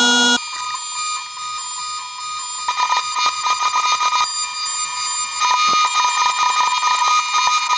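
CNC milling machine cutting a race car upright from a solid block: a steady high-pitched whine from the spindle and cutter. From about three seconds in, rapid chattering clicks run through it.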